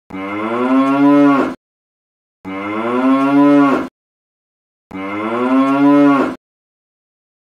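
A cow mooing three times, each moo about a second and a half long and ending abruptly, with silence between; the three calls are identical, the same recorded moo played over again.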